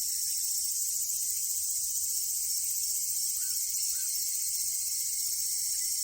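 A steady, high-pitched chorus of insects in natural ambience. Two faint short chirps come about three and a half and four seconds in.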